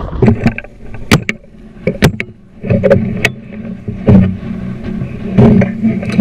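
Two shotgun shots about a second apart at a flushing rooster pheasant, followed by heavy rustling and rumbling handling noise as the hunter moves through tall dry grass.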